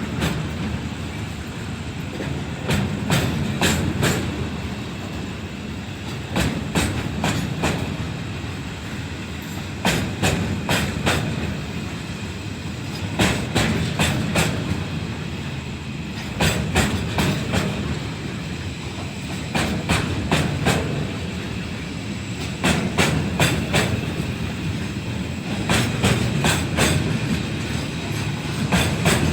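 A train's cars rolling past over a rail joint: a cluster of sharp wheel clicks about every three seconds, one cluster each time a pair of car ends crosses, over a steady rumble.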